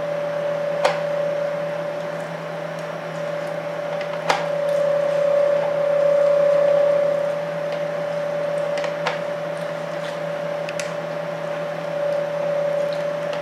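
Food processor's motor-driven citrus juicer running as orange halves are pressed onto the spinning reamer: a steady motor hum that grows louder for a couple of seconds midway, with a few sharp clicks.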